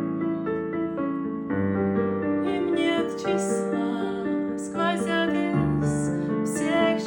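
Gentle piano-led music, with sustained keyboard notes moving through a slow melody and changing chords.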